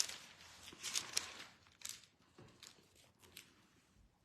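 Faint, irregular rustling of thin paper pages: a Bible being leafed through to find a passage.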